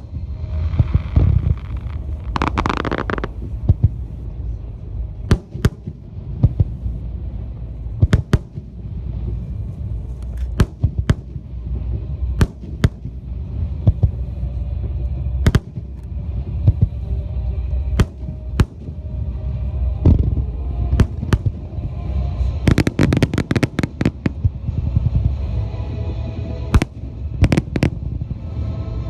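Wide starmine fireworks: shells bursting in quick succession as sharp bangs over a continuous low rumble, with a crackling hiss about two seconds in and a dense volley of bangs a little after twenty seconds. Music plays underneath.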